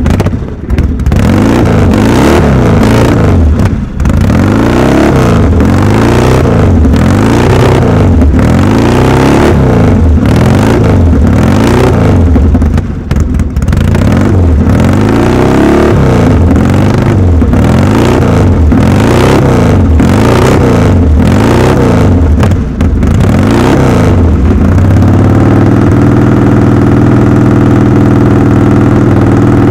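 Small classic dirt bike engine revved in quick repeated blips, pitch rising and falling about once a second, then settling to a steady idle about 25 seconds in.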